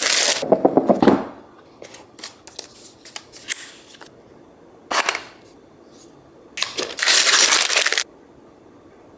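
Packaging being handled during an unboxing: a few bursts of rustling, tearing and scraping with scattered light clicks between them. The longest bursts are a short one about five seconds in and a longer one of over a second near the end.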